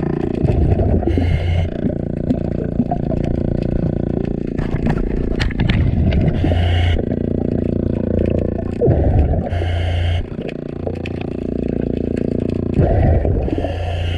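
A scuba diver breathing through a regulator underwater: a loud rush of breath and exhaled bubbles about every four seconds, over a steady mechanical hum. Scattered clicks between the breaths are typical of hull-cleaning contact.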